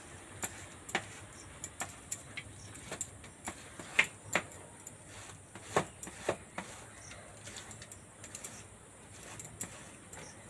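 Ripe palmyra palm fruit rubbed by hand against a woven bamboo basket set on a steel plate, scraping its pulp through the weave: a soft scraping with irregular clicks and knocks, the loudest about four and six seconds in.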